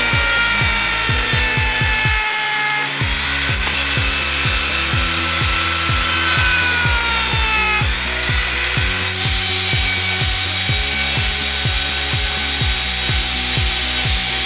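Rotary tool spinning a sanding drum against a wooden ice cream stick, a steady whine with a rasp of wood being sanded, under bright rock background music with a steady beat.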